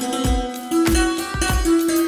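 Electronic dance music from a sample-pack demo: a plucked-string melody with an Indian flavour over deep bass-drum hits.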